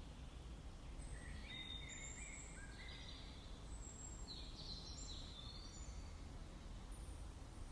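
A small songbird singing two short phrases of high chirps and trills, faint over a steady low background rumble.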